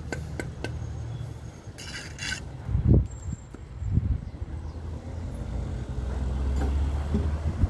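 Low, steady engine rumble from a nearby vehicle or machine, growing louder in the second half. Over it come a few light clicks at the start, a short scrape about two seconds in, and two dull thumps about three and four seconds in.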